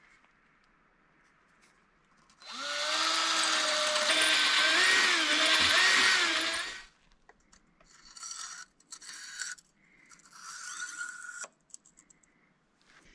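A 20-volt cordless drill boring into the oven's brick wall for about four seconds, its motor pitch dipping and recovering under load. It is followed by two shorter, quieter runs.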